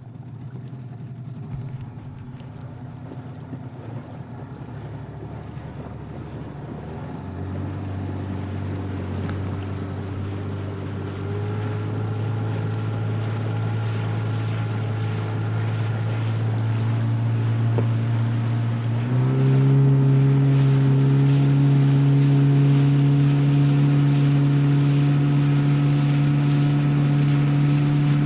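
Motorboat engine running and speeding up in steps, its pitch rising three times and last and most clearly about two-thirds through, growing louder as the boat gathers speed. Wind and water rush run beneath it.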